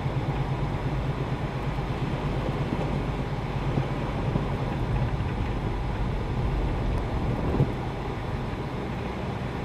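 Gusty storm wind and large lake waves, a steady heavy rush with a low steady hum under it and a single brief knock near the end.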